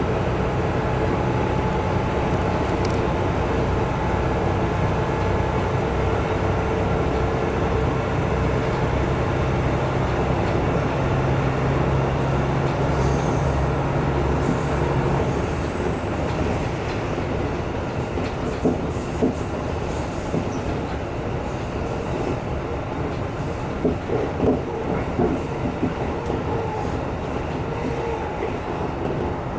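KiHa 200 series diesel railcar running along the line, heard from the front of the train: a steady low diesel engine drone for about the first half, which then drops away, leaving wheel and track running noise with a few sharp clacks over rail joints in the second half.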